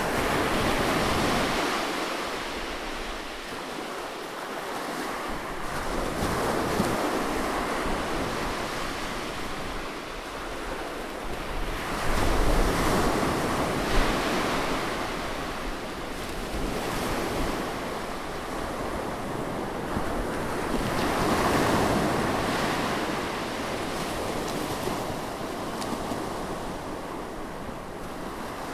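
Sea waves breaking close by on a shore, a continuous wash that swells and falls back every few seconds, with a sharper splash about halfway through.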